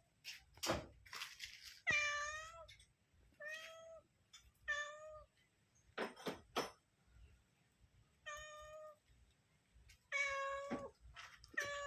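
Mother cat meowing over and over, about six drawn-out calls a second or two apart, with a few short sharp sounds between them. This is the calling of a queen searching for her kittens.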